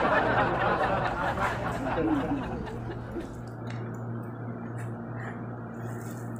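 Chopped garlic and onion scraped off a wooden chopping board into an aluminium pot of raw chicken: a rustling scrape that fades away over the first second or two. A steady low hum runs underneath.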